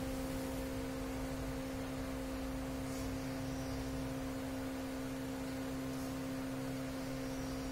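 A steady, even hum: one low pitch held unchanged, with a fainter higher one above it.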